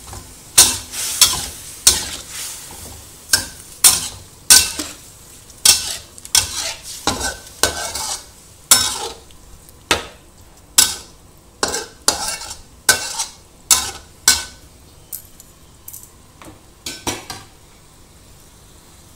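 Metal spatula scraping and knocking against a wok while stirring chicken pieces in a thick sauce, about one or two strokes a second over a soft sizzle. The strokes thin out and stop near the end.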